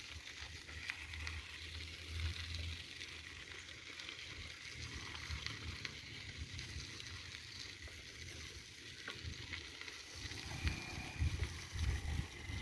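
Faint outdoor noise: wind rumbling on the phone microphone over a steady hiss.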